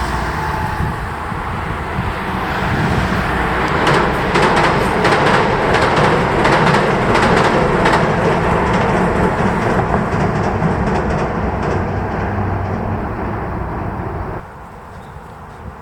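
A train passing close by, its wheels clattering over the rail joints as it goes; the noise swells, fades, and cuts off sharply near the end.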